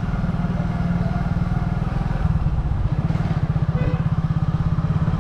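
Motorbike engine running steadily under way, heard from on the bike, with its low firing pulses coming through as an even, rapid throb.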